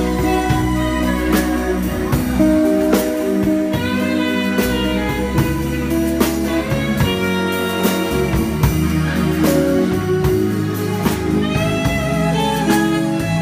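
Live band playing an instrumental passage, an alto saxophone holding and moving between melody notes over keyboard and a drum beat.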